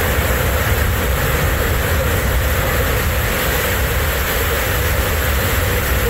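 Waterfall in heavy monsoon flow: a loud, steady rush of falling water, deepest in its low rumble, without a break.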